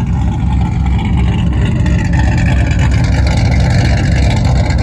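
Jeep Grand Cherokee ZJ's 5.2 V8, with aftermarket heads and cam, running with a heavy, steady low rumble. A fainter tone above it sags and then rises again, as engine speed changes. It is running smoothly now that a new fuel pump and alternator have cured its stalling.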